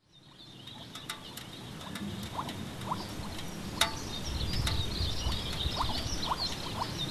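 Open-steppe ambience fading in: a low wind rumble under a dense, high twittering of small chirps, with a few short lower chirps and several sharp clicks.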